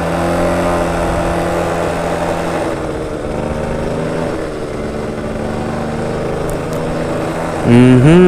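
Motorcycle engine running steadily while riding, its note shifting in pitch a couple of times.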